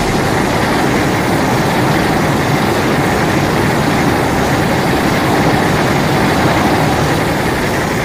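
A steady, loud rumbling noise with no clear pitch or beat, part of a set of monster-film sound effects.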